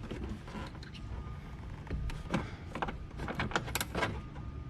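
Scattered light clicks and knocks from hands working the oil separator's hoses and fittings in the engine bay, bunched together in the second half.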